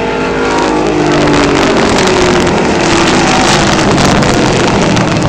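Several race trucks' engines running hard as the pack comes past, their notes sliding down in pitch.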